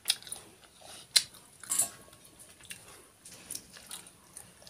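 A few sharp, separate clinks of stainless steel bowls and plates being handled during a meal. The loudest comes about a second in.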